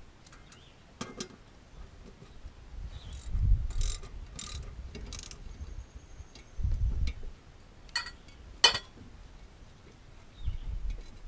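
Hand tools working a mower blade bolt under a garden tractor's deck: scattered metallic clicks and a run of short ratcheting strokes, with a couple of dull low thumps.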